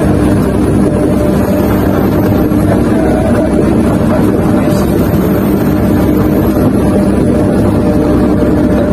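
Sumitomo SH250 excavator's diesel engine running steadily, heard from inside the operator's cab.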